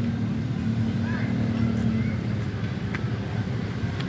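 Steady low hum of a running motor vehicle with road noise, an engine tone fading about two seconds in; a faint chirp about a second in and a short click near the end.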